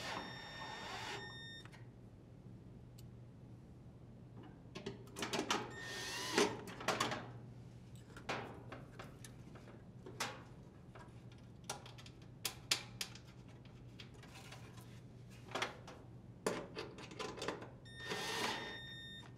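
Cordless drill driver whirring in three short runs, at the start, about six seconds in and near the end, as it drives screws into the dryer's metal motor plate. Scattered light clicks and metallic knocks from handling the screws and sheet metal fall in between.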